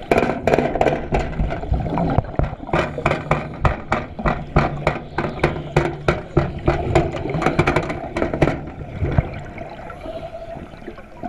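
Underwater water noise: a low sloshing, gurgling wash heard through a submerged camera. Over it comes a rapid, irregular run of sharp clicks, about four a second, that stops about eight and a half seconds in.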